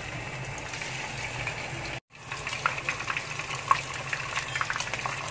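A whole corn-flour-coated sea bass deep-frying in very hot oil in a wok: a steady sizzling hiss with scattered pops and crackles of the oil. The sound cuts out for a moment about two seconds in.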